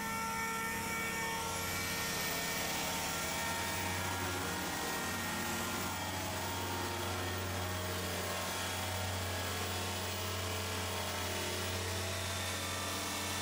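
Handheld power sander running steadily against car body sheet metal, sanding off paint, a steady drone with a high whine that rises about a second and a half in.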